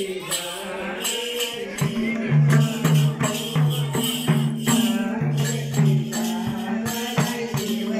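Madal hand drums beating a steady maruni dance rhythm, their deep pitched bass strokes about two a second, with a metallic jingling over them.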